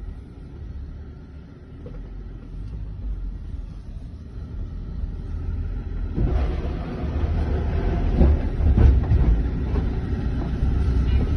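Low rumble of a vehicle in motion. About six seconds in it grows louder, with rattles and knocks over the rumble.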